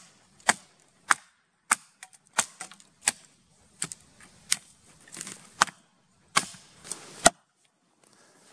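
Hatchet chopping into a fallen conifer trunk: about a dozen sharp blows, one roughly every half to three-quarters of a second, stopping shortly before the end.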